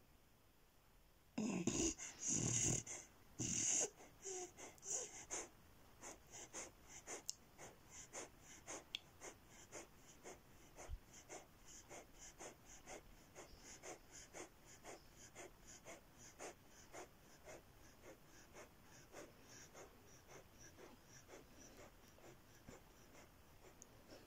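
Beagle puppy breathing in quick, short puffs in its sleep, about two a second, the rapid breathing of a dreaming dog. A few louder bursts come in the first few seconds, and the puffs slowly fade toward the end.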